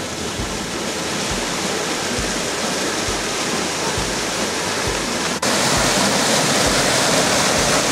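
Whitewater rushing through a narrow rocky river gorge, a steady dense water noise. It jumps suddenly louder about five and a half seconds in.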